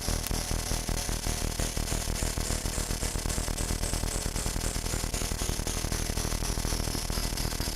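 Arduino-based DIY noise synthesizer putting out a dense buzzing, static-like drone with a rapid pulsing flutter over a low hum, and high hissy tones stepping around in a repeating pattern.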